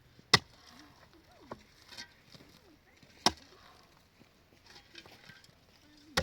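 Three sharp chopping blows, about three seconds apart, each a single hard strike.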